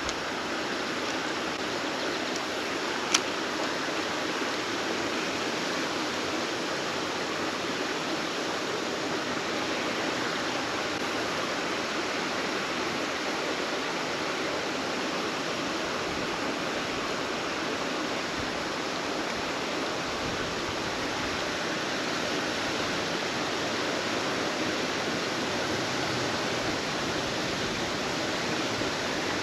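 Steady rushing of a creek's running water, an even, unbroken wash of noise. A single sharp click about three seconds in.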